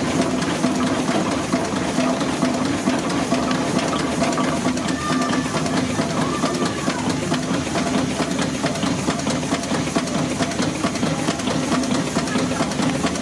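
Steam engine running steadily with a rapid, even beat, a steady hum and a hiss of steam.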